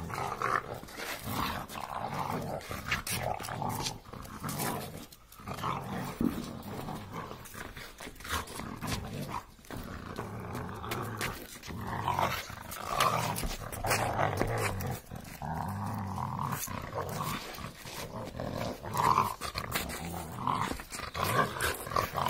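Rottweiler play-growling as it mouths and jumps at a boy's hands: rough-housing, not aggression. The growling comes in long runs with a few brief pauses.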